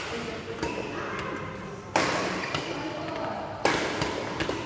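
Badminton rackets striking a shuttlecock in a rally: sharp cracks, the loudest about two seconds in and again near the end, each ringing on in a large echoing hall.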